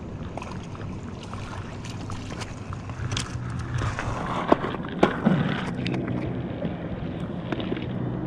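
A crappie landed on a gravel-and-rock bank: a clatter of small knocks and rattles about halfway through, with two sharp knocks half a second apart, over a steady low hum.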